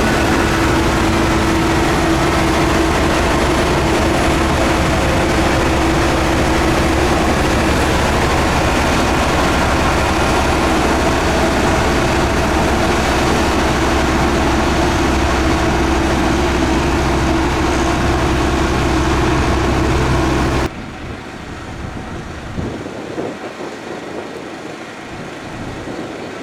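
Heavy road-construction machine's engine running steadily with a droning hum. About three-quarters of the way through it cuts off abruptly and gives way to a quieter, rougher machine sound.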